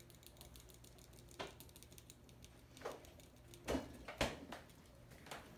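Small whisk stirring a wet mixture in a small glass bowl: a quick run of faint light clicks, then a few louder taps of the whisk against the bowl.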